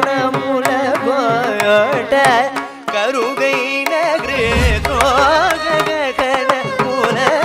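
Carnatic concert music: a singer's ornamented, sliding melody with violin accompaniment over a steady run of mridangam strokes, with a deep bass drum stroke about four seconds in.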